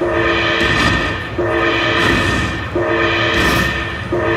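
Slot machine sound effect: a short horn-like chord of a few steady tones repeating about every 1.4 seconds, four times, over a steady background din.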